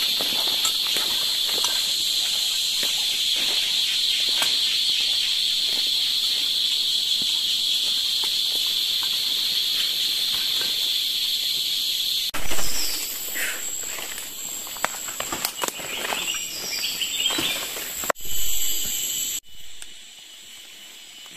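A dense chorus of forest insects drones steadily at a high pitch, then cuts off abruptly about twelve seconds in. It gives way to quieter forest sound with scattered short chirps and light rustling.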